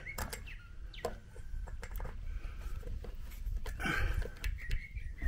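Grease gun worked on a riding mower's front-wheel spindle grease fitting: scattered sharp clicks as the coupler is seated and the gun is pumped.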